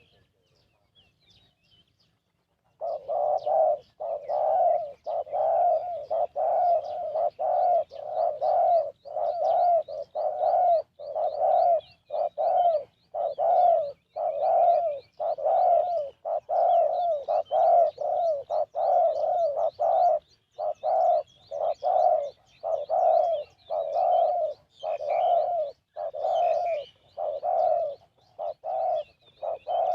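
Spotted dove cooing: a long, steady run of short low coos, a little more than one a second, starting about three seconds in. Faint high chirps of other birds sound above them.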